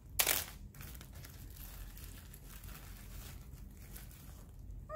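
A plastic bag full of shredded paper crinkling and rustling as hands dig an egg out of it, with a louder crackle just after the start.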